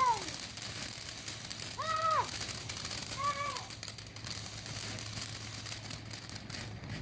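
Three short wordless 'ooh' calls from a child's voice, each rising and falling in pitch, over the faint hiss and crackle of burning ground fireworks, which dies away near the end.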